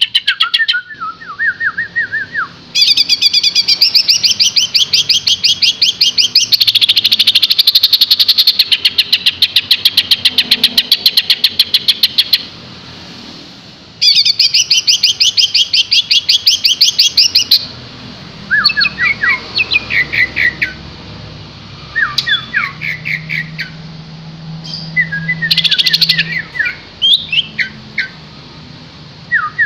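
Cucak hijau (greater green leafbird) singing vigorously: long runs of rapid, high repeated notes, broken by a pause of about a second and a half. In the second half come shorter phrases of lower, downslurred whistles.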